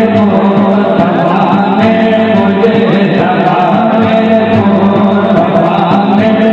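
A group of men chanting durood sharif together, a devotional recitation of blessings on the Prophet, over a steady drum beat.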